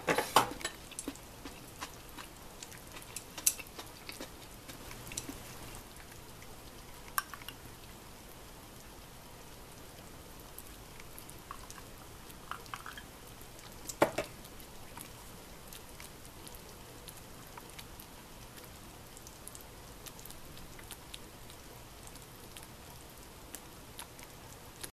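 Earthenware pot of dan dan gyoza hotpot simmering on a portable gas burner: a soft steady hiss with small scattered pops. There are a few sharper clicks, the loudest about 14 seconds in.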